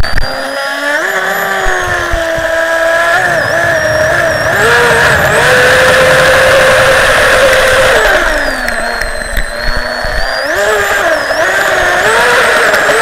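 HK Podracer model boat's electric motor and propeller whining at speed, heard from a camera riding on the boat, over the rush of its spray. The whine rises and falls with the throttle, holds a steady high pitch for a few seconds at full speed midway, dips, then climbs again near the end.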